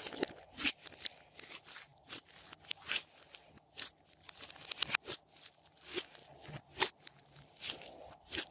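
Hands working glossy slime: irregular sticky pops, clicks and crackles as the slime is pressed, stretched and pulled apart.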